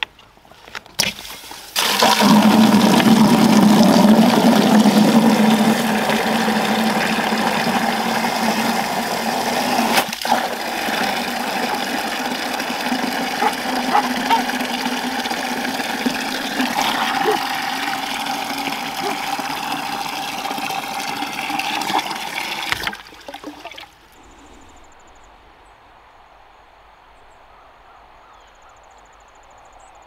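Water from a garden hose pouring into a plastic five-gallon bucket: a loud, steady rush that starts about two seconds in and stops sharply a few seconds before the end.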